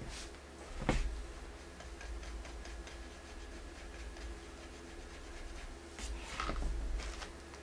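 Stencil brush stippling dry paint onto a wooden bowl: a run of quick, light taps, with a louder brushing scuff about a second in and another near the end.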